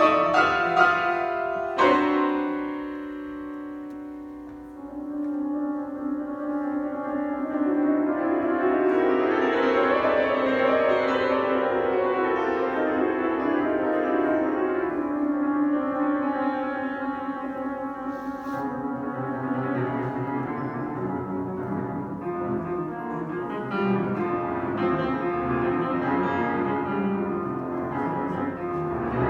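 Solo grand piano playing a fast classical toccata. Loud chords come near the start, and one is left to ring and fade for a few seconds. Then a rapid, unbroken stream of notes builds up and runs on.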